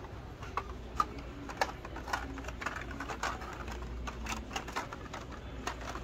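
Hot Wheels blister-pack cards being flipped through on metal peg hooks: irregular plastic clicks and clacks, with the loudest about a second in, over a steady low hum.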